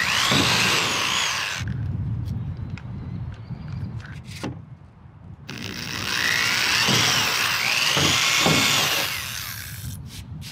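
Cordless drill with a 1/8-inch bit boring pilot holes through a Jeep Wrangler hardtop: a short burst at the start, then a longer one from about halfway. The motor whine rises and falls in pitch as the bit goes through both skins of the top.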